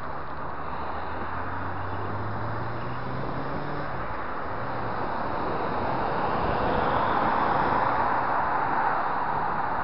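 Wind and road noise while riding a bicycle in city traffic. A motorcycle's engine climbs in pitch over the first four seconds as it accelerates away, and a car passing close alongside brings a louder rush from about six seconds in.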